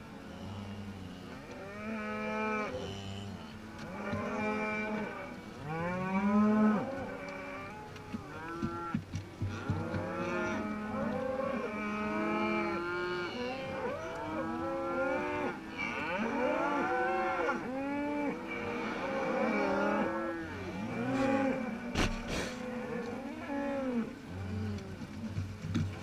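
Herd of cattle, cows and calves, mooing, many calls overlapping one another, each rising and then falling in pitch. A sharp knock sounds late on.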